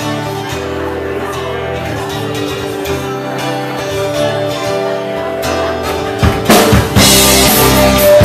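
Live rock band: electric guitars and bass guitar play the song's intro. Drum hits come in about six seconds in, and the full band kicks in louder near the end.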